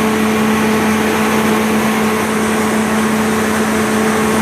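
Onan 30EK natural-gas generator set running at a steady, constant speed with an even hum.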